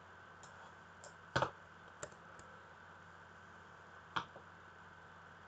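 Computer mouse clicks: a double click about a second and a half in, single clicks at about two and about four seconds, and a few fainter clicks in between, over a faint steady hum.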